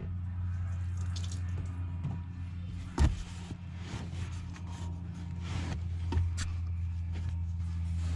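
Engine coolant trickling out of a disconnected heater core pipe, then a cloth rag rustling against the pipes as the spill is wiped, with one sharp knock about three seconds in. A steady low hum runs underneath.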